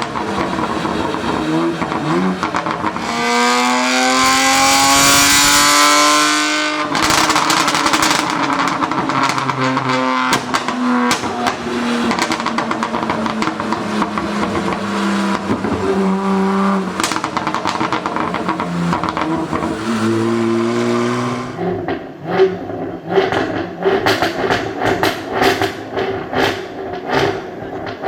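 Car engine revving, its pitch rising from about three seconds in, with exhaust pops and crackles. In the last seven seconds comes a string of separate sharp bangs from the exhaust: anti-lag bangs.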